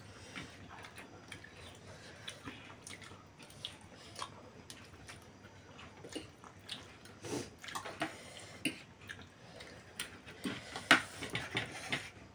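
People eating noodles: chewing and slurping, with forks and spoons clicking against plates now and then in short, scattered sounds.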